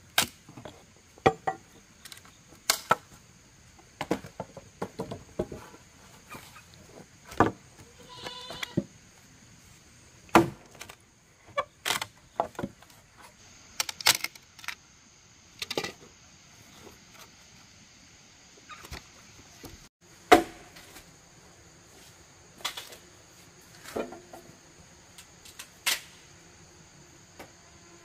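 Firewood being chopped with a hand blade, irregular sharp chops and cracks into wood with splintering as pieces split off. A steady high chirr of insects runs behind.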